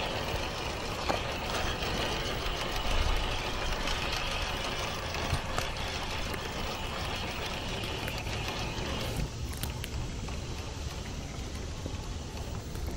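1/10-scale Gmade Buffalo GS02F rock crawler with a Hobbywing Fusion motor crawling over dirt, rocks and roots. The electric motor and drivetrain whine while the tires crunch and grip on the trail, with a few sharp clicks. The higher whine eases off about nine seconds in.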